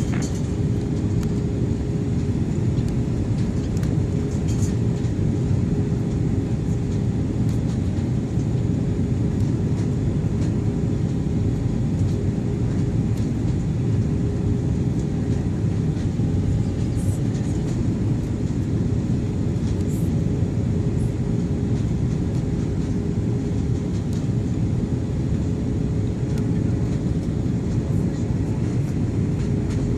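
Jet airliner cabin noise on the approach to landing: a steady rushing noise of the engines and airflow with a constant hum, and a few faint clicks.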